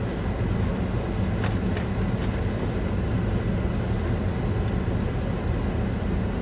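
Steady low vehicle rumble heard inside a car, with a few faint clicks about one and a half seconds in.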